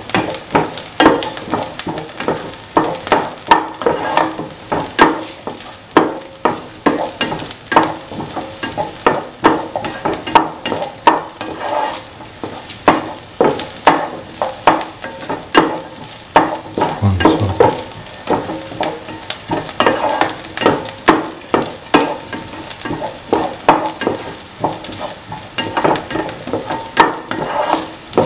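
A spatula stirring sliced onions, shallots and garlic being sautéed in a little oil in a pan: repeated scraping strokes against the pan, about one or two a second, over a light sizzle.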